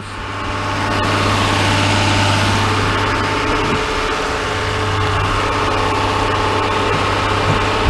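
Truck engine running steadily, building in level over the first second or two as the truck pulls away.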